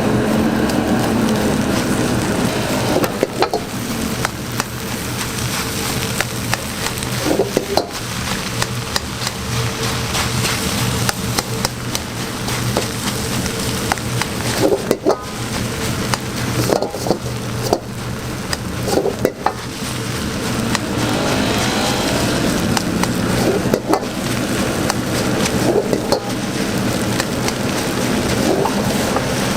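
Egg fried rice sizzling in a wok, with a metal spatula stirring and knocking against the pan again and again, over a steady low hum.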